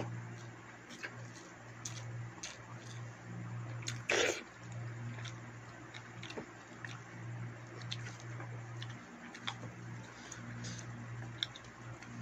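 A person eating rice and curry by hand from a steel plate: scattered chewing and mouth clicks with fingers working the rice on the plate. A short, loud breathy sound comes about four seconds in, over a steady low hum that breaks off now and then.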